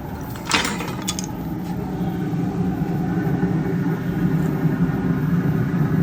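Steady low mechanical hum that grows slowly louder, with a couple of short sharp knocks or scrapes about half a second and a second in.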